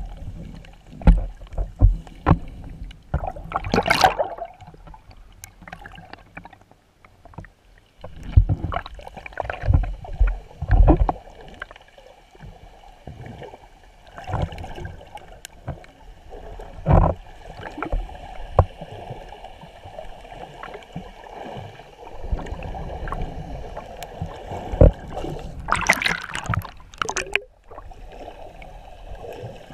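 Water sloshing and bubbling around a submerged camera, heard muffled from underwater, with irregular low knocks. There are two louder surges of water noise, about four seconds in and near the end.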